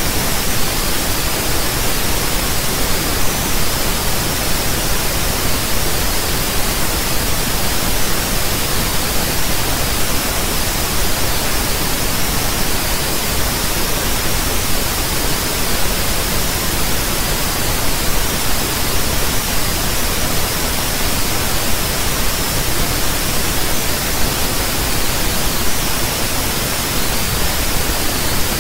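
Loud, steady static hiss that holds unchanged throughout, with no other sound in it.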